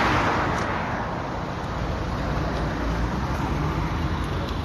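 Road noise from a queue of cars with engines running: a steady low rumble, with a rushing noise that fades away about a second in.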